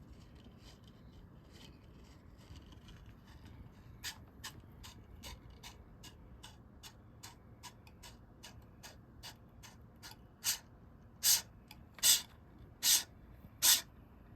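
DIY 3D-printed linear servo motor stroking back and forth: a run of short clicks, two or three a second. From about ten seconds in it gives way to five louder, longer strokes under a second apart.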